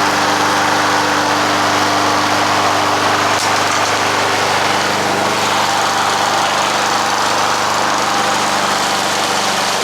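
Small gas lawn mower engine running steadily at constant speed, cutting grass.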